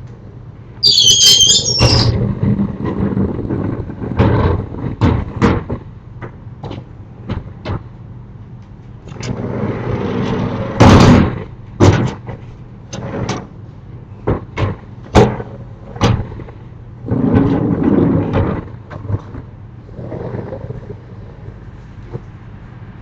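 Japanese sliding storm shutters (amado) being rolled along their track: a high squeal about a second in, then several stretches of rumbling broken by sharp knocks and bangs, the loudest halfway through.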